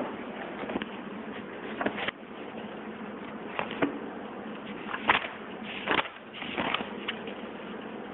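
Steady hiss of classroom room noise, broken by a few scattered short clicks and knocks.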